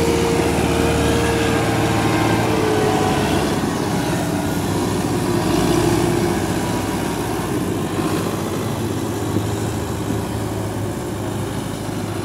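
Diesel engines of farm tractors, a Massey Ferguson 260 and a Belarus, running steadily as they haul loaded sugarcane trolleys past; the sound eases slightly near the end.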